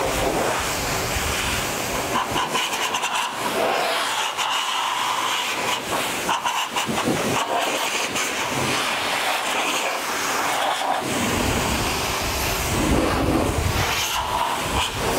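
MetroVac Revolution car dryer blowing a steady hiss of air through its hose onto wet car paint, running on one of its two motors. A low rumble of air comes and goes as the nozzle moves, strongest near the end.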